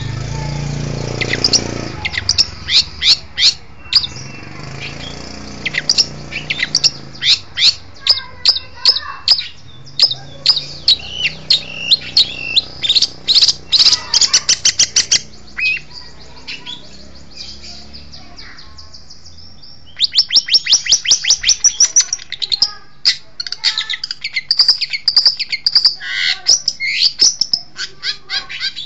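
Long-tailed shrike (cendet) singing loudly: rapid runs of sharp, high chirps and whistled notes in a varied song, falling quiet for a few seconds past the middle before starting again with a fast string of notes.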